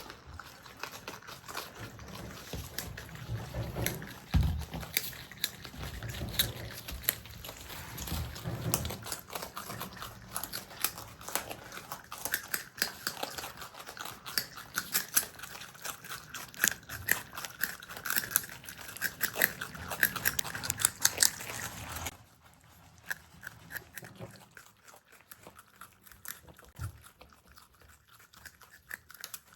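Marmots chewing and crunching food close up: a dense run of sharp crunches and clicks that becomes quieter and sparser about 22 seconds in.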